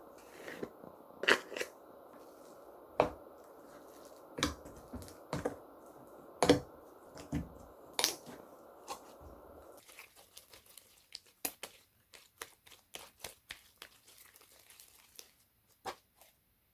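Slime being squished and pulled by hand, giving a string of sticky pops and clicks with a few louder ones. After about ten seconds the pops turn into quicker, smaller clicking.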